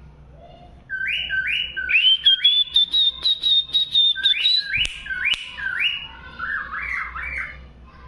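Cockatiel whistling and chirping: a run of short rising notes, a long steady high whistle, then more rising notes and a lower chatter near the end. Two sharp clicks about five seconds in.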